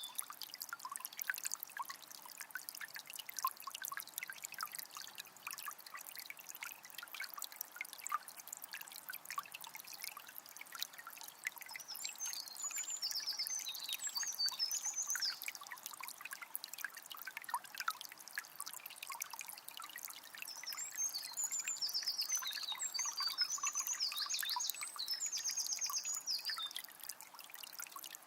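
Small spring trickling and splashing steadily. A songbird sings high trilling phrases about twelve seconds in, and again at more length near the end.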